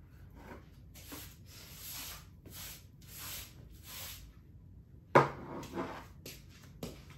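Broom sweeping a floor in short swishing strokes, about one every two-thirds of a second. About five seconds in comes a single sharp knock, followed by a few lighter taps.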